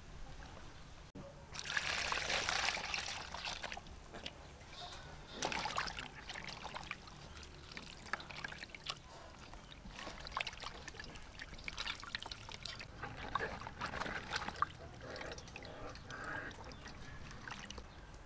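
Water splashing and trickling in a metal bowl as hands rinse pickled bok choy, with a louder rush of water about two seconds in and a shorter one a few seconds later, then many small splashes and drips.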